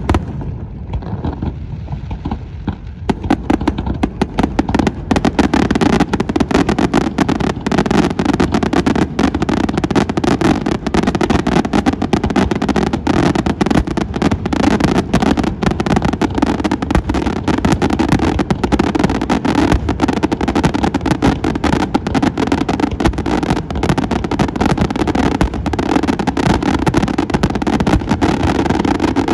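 Aerial fireworks display: a few separate shell bursts, then from about three seconds in a dense, unbroken barrage of rapid bangs, many each second.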